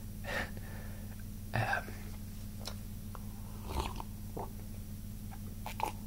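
A few short breaths and mouth noises from a close-miked whisperer pausing between sentences, over a steady low electrical hum.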